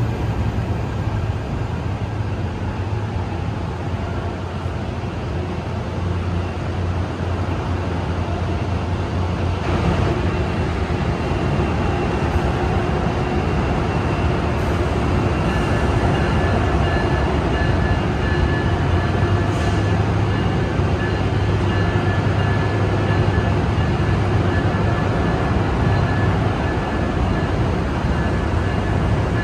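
NJ Transit diesel-hauled commuter train running at the platform: a steady low engine rumble with rail noise. About halfway through, a thin high steady whine joins in.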